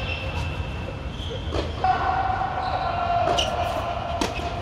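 Tennis rackets striking the ball three times in a rally, each hit sharp and echoing, over a steady low rumble. A drawn-out squeal runs through the middle of the rally.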